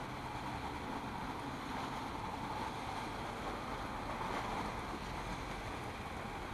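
Cars driving past on a rain-wet road, their tyres hissing on the wet pavement over a steady rush of noise, swelling slightly about four seconds in.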